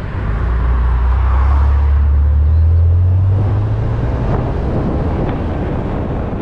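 BMW M2 Competition's 3.0-litre twin-turbo straight-six under acceleration, its deep note building over about three seconds, then easing off as the throttle comes back, over road and wind noise.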